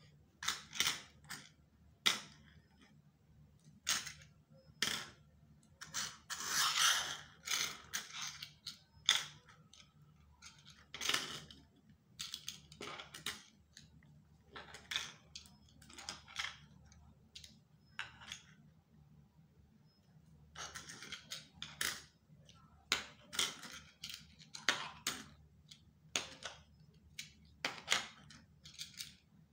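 Round button badges being slid and set down on a wooden table: a string of irregular clicks and taps, with a few longer scraping slides, the longest about six seconds in.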